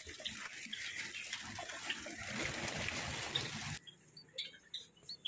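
Java sparrows chirping with short high notes over a dense rustling noise. About four seconds in, the sound drops abruptly to a quiet background where only a few faint chirps remain.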